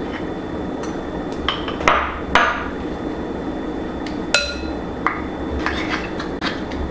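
A measuring cup and spoon knocking and scraping against a mixing bowl as pumpkin puree is scooped and scraped in: a run of separate sharp taps, one about four seconds in with a short ring. A steady low hum sits underneath.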